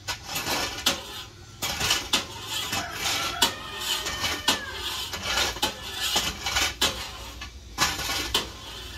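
Metal kitchenware clattering: an irregular run of knocks, clinks and scrapes of baking tins and utensils being handled.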